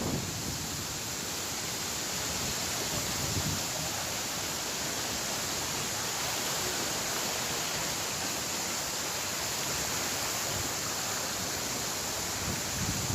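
Steady rushing noise of a waterfall, with a couple of brief low buffets of wind on the microphone.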